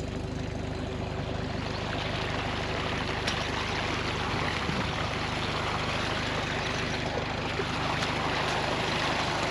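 Water gushing out of a flood pump's outlet pipe and splashing into a drainage ditch, growing louder about two seconds in, over the steady low hum of a Farmall M tractor's four-cylinder engine driving the pump by flat belt at slow speed.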